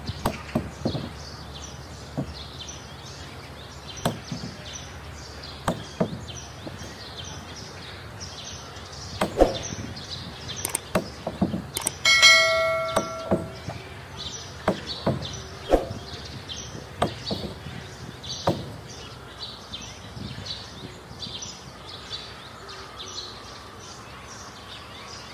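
Irregular mallet blows knocking on the wooden planks of a boat hull under construction, with one ringing metallic clang about halfway through. Birds chirp throughout.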